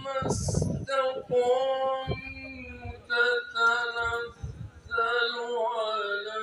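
A voice singing an unaccompanied nasheed in long held notes, with a short thump and hiss about half a second in.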